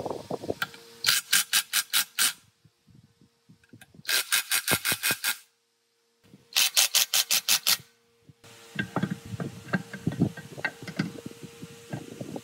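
Hand tool scraping in fast back-and-forth strokes, about seven or eight a second, in three short runs of just over a second each, followed by scattered light knocks and clicks of handling.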